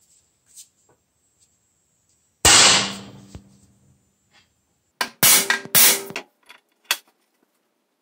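Hammer striking the steel punch of a homemade hammer crimper to crimp a copper lug onto battery cable. One heavy blow rings out and fades over about a second, then two more loud metallic knocks come about three seconds later, followed by a lighter clink.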